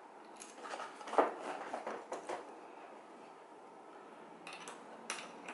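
Small metallic clicks and scrapes of a bolt being threaded by hand into a gaming chair's metal backrest bracket. There is a quick cluster in the first couple of seconds, the sharpest about a second in, and a few more near the end.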